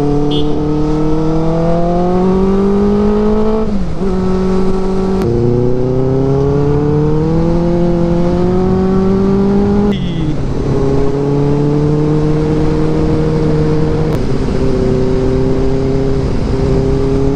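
Benelli TNT 600i's inline-four engine under way, heard from the rider's seat: the note climbs as the bike accelerates and drops sharply at upshifts about 4 and 10 seconds in, then holds a steady cruise. Wind rushes on the microphone throughout.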